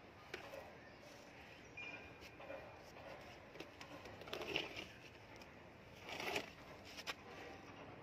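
Leaf lettuce being cut and handled, heard as a few short bursts of rustling and snapping leaves, the loudest about halfway through and again after six seconds.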